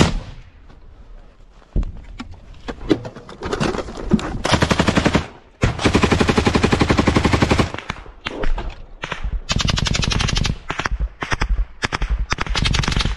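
Automatic gunfire in the trench: a few scattered shots, then two long continuous bursts a little before halfway, followed by shorter bursts through the rest.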